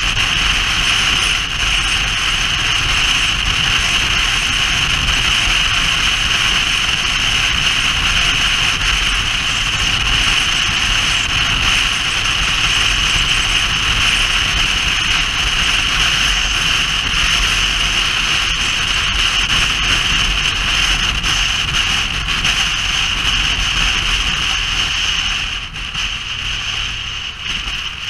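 An engine running steadily with strong wind-like rushing noise over it, the whole sound dropping somewhat in level near the end.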